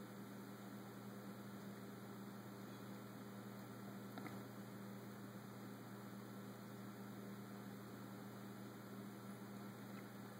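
Quiet room tone: a faint, steady low electrical hum over soft hiss, with one faint click about four seconds in.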